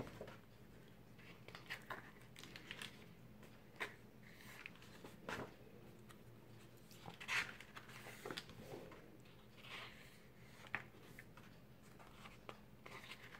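Pages of a scrapbooking pad of printed paper sheets being turned and handled: faint, short paper rustles and flicks every second or two, the loudest about seven seconds in.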